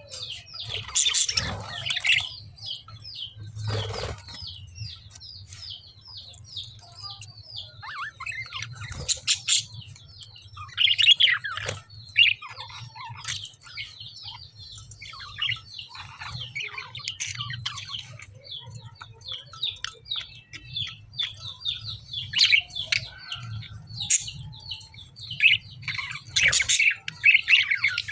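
Caged lovebirds chirping: a continuous stream of quick, high-pitched twitters, broken by several louder, harsher squawks. A steady low hum runs underneath.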